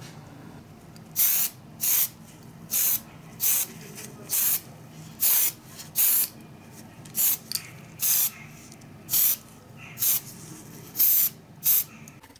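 Spray paint hissing in short bursts, about one a second with brief gaps, as a small diecast model part is coated.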